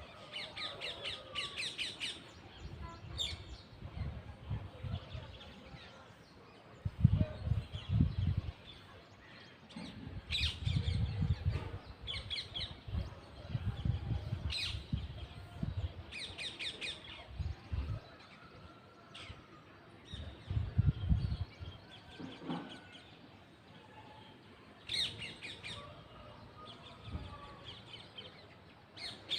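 Parrots calling in short, rapid bursts of harsh chirps repeated every second or two. Low rumbling bursts on the microphone come and go underneath, loudest about seven seconds in and again about twenty-one seconds in.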